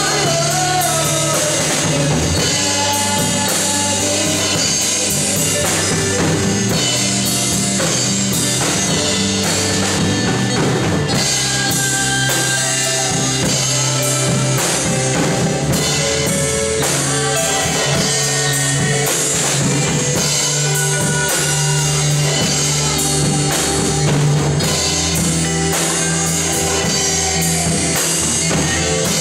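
Live worship band music: a drum kit, electric guitar and keyboard playing a steady rock-style praise song.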